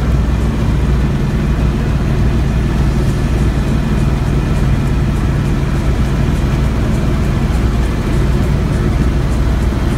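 Helicopter cabin noise in flight: a steady, loud low drone from the engine and rotor under an even rush of air.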